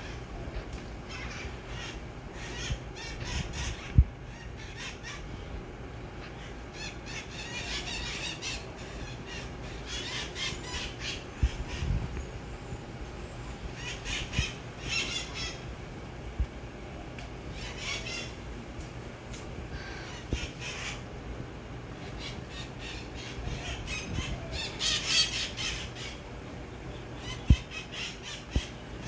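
Green parrots giving bouts of harsh, rasping squawks that recur every few seconds. A few short low thumps are heard among the calls.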